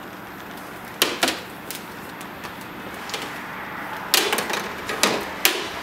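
Sharp plastic clicks and knocks as a hand siphon pump and its clear hose are handled and pushed into a snowmobile's coolant reservoir: a pair about a second in, then several more from about four seconds in.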